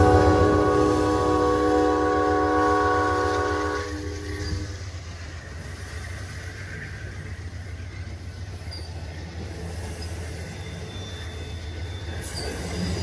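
Amtrak passenger train passing: the diesel locomotive's multi-note horn sounds one long blast for about four seconds over the heavy engine rumble. The steady rumble and rattle of stainless-steel passenger cars rolling by follows. Near the end, high-pitched wheel squeal starts.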